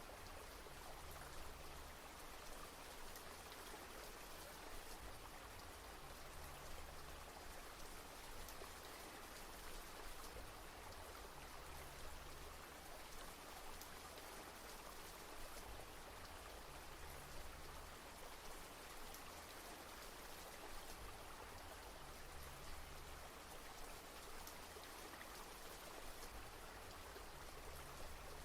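Steady, soft rain: a continuous, even patter of raindrops.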